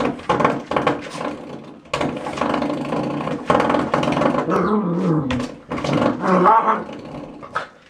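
A dog growling while it paws and mouths at a spring door stop, the stop's spring twanging with sudden loud onsets about two and three and a half seconds in.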